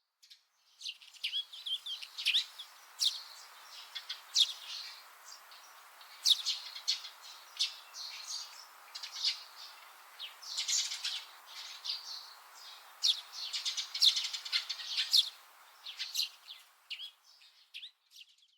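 Small birds chirping and twittering in quick, irregular calls over a soft, steady outdoor background hiss. The sound starts about a second in and stops just before the end.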